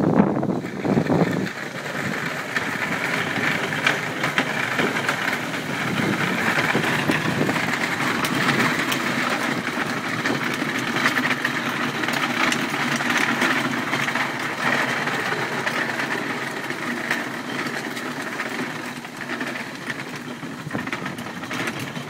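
Hard plastic wheels of children's ride-on pedal tractors rolling along a garden path while being towed, a steady rattling with many small clicks.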